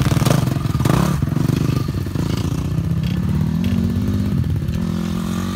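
Pit bike engine running close by, its pitch dropping about a second in and then climbing again in the second half as the throttle is opened.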